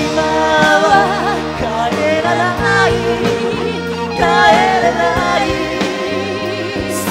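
Rock band song: a singer holding long, wavering notes over electric bass and the band.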